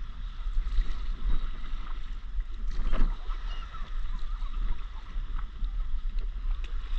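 Paddle strokes from a stand-up paddleboard: water swishing and splashing, with a stronger stroke about three seconds in. A steady low rumble of wind on the microphone runs underneath.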